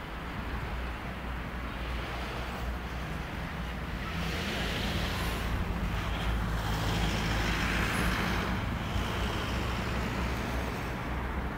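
Road traffic: a car passing on a nearby street, its tyre and engine noise swelling about halfway through and fading near the end, over a steady low rumble.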